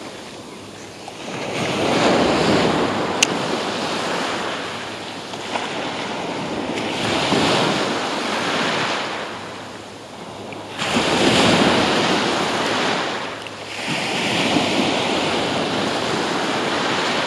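Small surf breaking and washing up the sand at the waterline, swelling and fading in about four waves.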